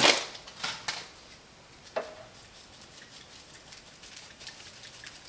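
Seasoning being shaken over a cooked burger patty: a few light clicks, one sharp click with a brief ring about two seconds in, then faint patter of sprinkling.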